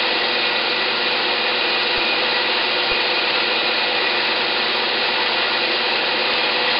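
Steady whirring of a small AC fan motor salvaged from a microwave oven, spinning a magnet-disc generator and a coupled DC generator, with a faint steady whine. The DC generator is under an electrical load, which drags the shaft speed down by about 5%.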